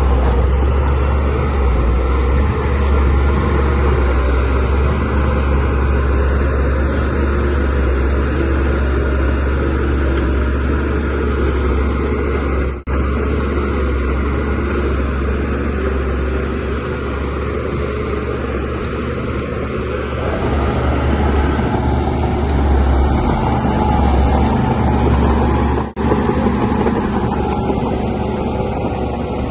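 Shantui DH17C3Pro bulldozer's diesel engine running steadily under load with a deep low hum, broken by two brief drop-outs about a third and near the end.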